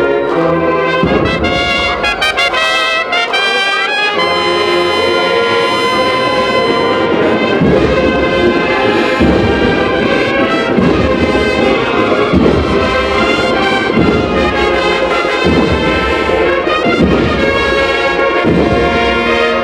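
Spanish Holy Week agrupación musical (processional brass band) playing a march: brass chords with a steady drum beat that comes in about eight seconds in.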